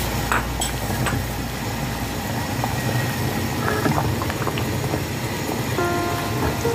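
Pot of soup at a rolling boil, bubbling steadily, with a few light knocks of a silicone spatula against the stainless-steel pot as it is stirred.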